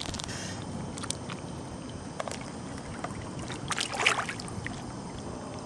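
Lake water sloshing and trickling around a snorkeler moving in the shallows, with a few small splashes and knocks, the most noticeable about four seconds in.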